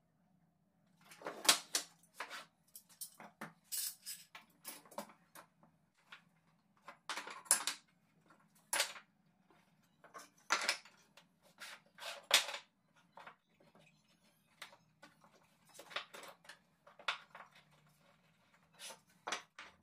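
Steel bar clamps and pine frame pieces being handled on a wooden workbench: irregular clicks, knocks and metallic clatter as the clamps are laid across the frame and their jaws slid and tightened.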